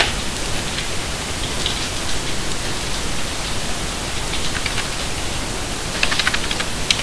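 Steady hiss of background noise, with a few faint clicks and a quick run of faint clicks about six seconds in, from a computer keyboard and mouse being used.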